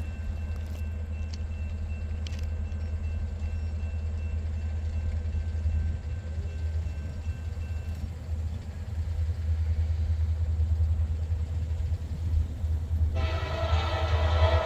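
Low rumble of an approaching diesel freight train, growing louder; about 13 seconds in, the locomotive's multi-chime air horn starts and holds a long blast.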